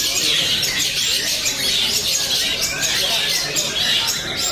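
Young long-tailed shrike (cendet) singing a fast, unbroken stream of quick chattering notes, the 'sewing-machine' speed prized in contest birds, with other birds chirping around it.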